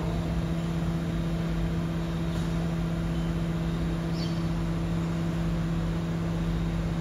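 BYD electric garbage truck standing and running, giving a steady electric hum over a low rumble. A brief faint high squeak comes about four seconds in.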